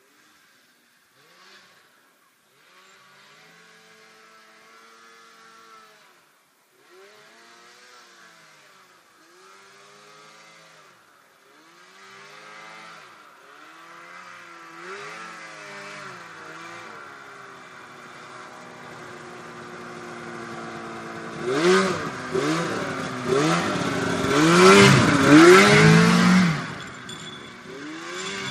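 Snowmobile engine revving up and down over and over, faint at first and growing louder as it approaches, loudest about three-quarters of the way through, then dropping away as it passes.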